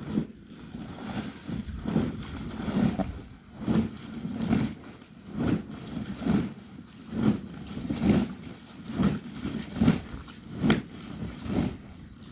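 Footsteps walking at an even pace, a dull thud a little more than once a second, with one sharper step near the end.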